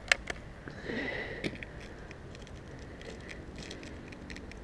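Daisy Powerline 1000 break-barrel air rifle being cocked and handled: two sharp clicks of the action right at the start, another about a second and a half in, then a run of faint small clicks.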